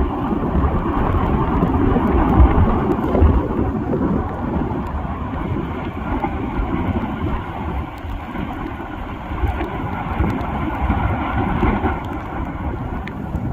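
Erupting Fagradalsfjall volcano making a continuous deep rumbling noise from its lava-filled crater, with a few faint crackles, heard through wind buffeting an unshielded microphone.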